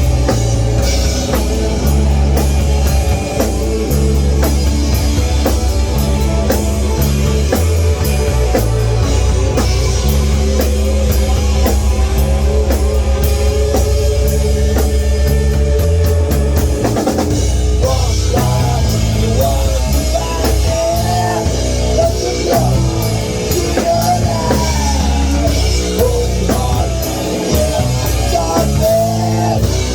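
Rock band playing an instrumental passage: drum kit, bass and electric guitar, with a lead line that bends up and down over the second half.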